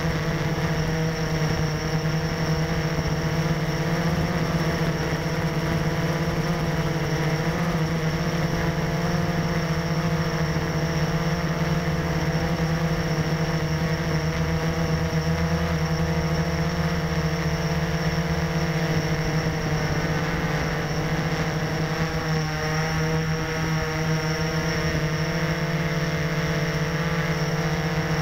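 Blade 350 QX quadcopter's four electric motors and propellers running steadily as it hovers, heard from a camera mounted on the craft itself: a loud, even drone whose pitch shifts slightly as the motors adjust.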